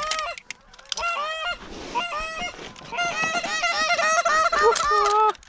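Canada goose honks and clucks in quick runs of short calls, easing off briefly near the start and building again into dense calling toward the end, with one lower, longer note near the end.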